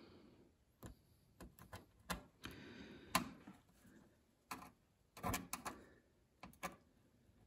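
Scattered faint clicks and short scrapes of a small screwdriver tip and fingers working a flexible dust seal into the hole around a gas hob's control-knob spindle.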